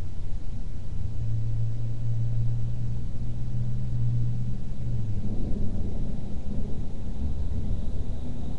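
Distant thunder rumbling low and steadily in a rainstorm, the rumble broadening a little about five seconds in.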